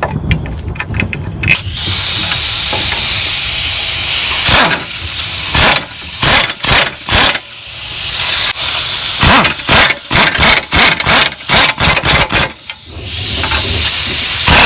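Pneumatic impact wrench running with a hiss of air, first in one long run, then in many short trigger bursts, then in another long run near the end.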